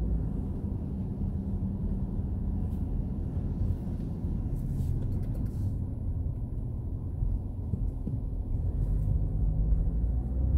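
A car driving on a wet street, heard from inside the cabin: a steady low rumble of engine and tyres. An engine hum fades in the middle and comes back near the end.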